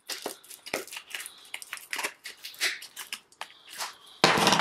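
Paper wrapping crinkling and crackling as it is slit open with a knife and handled, with a loud burst of crumpling near the end.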